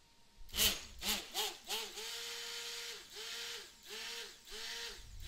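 Stick (immersion) blender pulsed on and off in raw soap batter, about eight or nine short bursts, the first few brief and the later ones longer. Each burst has a motor whine that rises as it spins up and falls as it winds down, mixing colorant into the cold-process soap batter.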